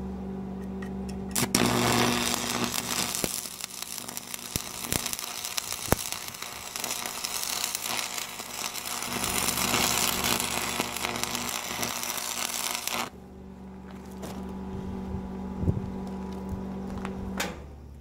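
Stick welding with a 7014 electrode on the steel of an excavator bucket. The arc strikes about a second and a half in, crackles and hisses steadily for about eleven seconds, and then breaks off. A steady low hum runs underneath and stops shortly before the end.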